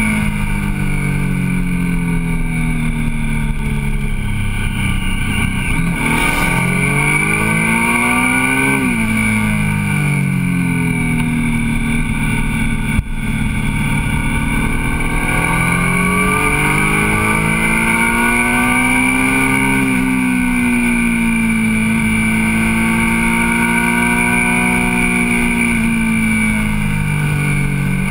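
Motorcycle engine heard onboard while riding, its revs rising and falling through the bends. About nine seconds in the pitch climbs quickly and then drops sharply, and a brief dip with a click comes about four seconds later.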